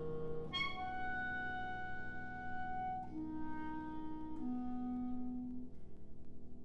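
Clarinet and grand piano playing slow, long-held notes, the upper line stepping up about three seconds in.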